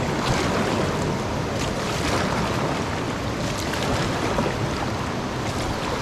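Steady rush of white water around an inflatable raft as the crew paddles forward, with a few scattered paddle splashes.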